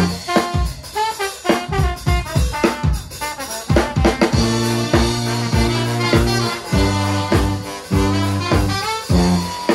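Brass band music with a drum kit playing a steady swing-style beat. Held low brass chords come in about four and a half seconds in.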